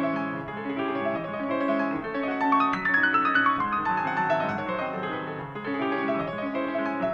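Piano-led instrumental music with no singing, its notes changing in a steady rhythm. Around the middle comes a quick run of notes falling in pitch.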